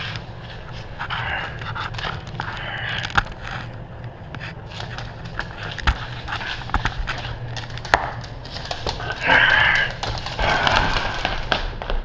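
Mini dachshund panting and huffing in short, irregular bursts while tugging on a rope toy, the loudest burst about nine seconds in. Scattered clicks and scrapes run among them.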